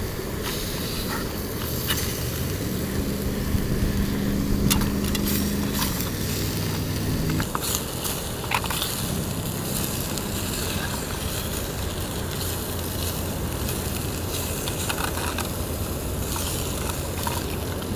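Freshwater drum fillets sizzling in a hot skillet, with scattered crackles and pops. A low steady hum joins about two and a half seconds in and stops about seven and a half seconds in.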